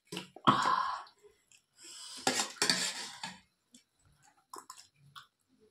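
Metal spoon scraping and clinking against a metal dinner plate of rice and curry: one loud scrape about half a second in, then a longer stretch of scraping from about two seconds in.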